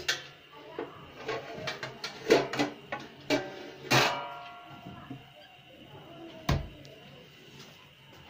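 Metal kitchenware, pots and lids, clanking in a run of irregular knocks that ring briefly after each strike, loudest in the first four seconds, with one duller thump about six and a half seconds in.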